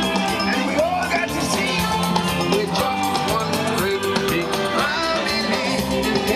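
Parade song playing loudly from the floats, a singing voice over a band with a steady drum beat.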